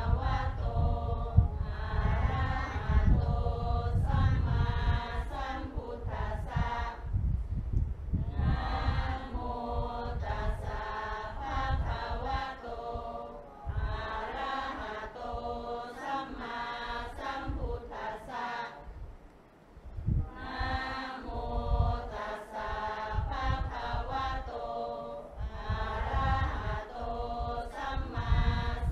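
A group of voices chanting a Buddhist Pali chant in unison, in phrases a few seconds long with short breaks between them.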